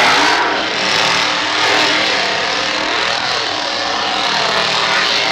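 Petrol chainsaw running at high revs, its pitch wavering up and down.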